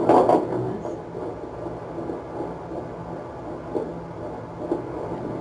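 A 12-week fetal heartbeat played through a fetal Doppler monitor's speaker, a steady rhythmic pulsing in noise. It opens with a brief louder burst in the first half second.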